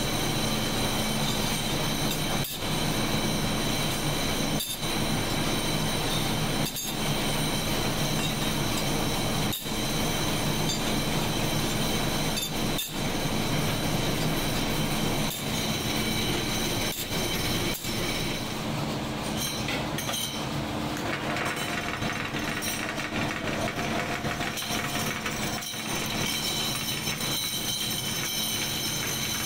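Steady factory machinery noise with a constant hum and a high whine, broken by short drop-outs every two to three seconds. The upper hiss thins out after about 18 seconds.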